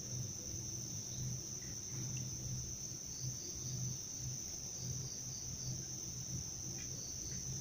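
Crickets chirping in a continuous high-pitched evening chorus, with a low hum underneath that swells and fades about twice a second.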